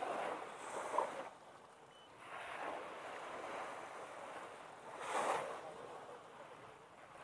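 Small waves washing up on a sandy beach, the surf rising and falling in several swells.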